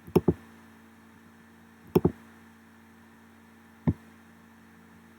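Computer mouse button clicks: a double-click, another double-click about two seconds later, then a single click, over a faint steady hum.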